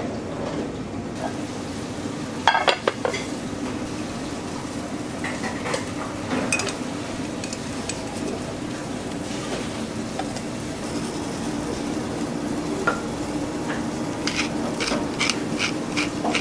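Teppanyaki counter sounds: a steady hum with a light frying sizzle under it, and metal utensils and plates clinking, a cluster of clinks about two and a half seconds in and a quick run of short clicks near the end.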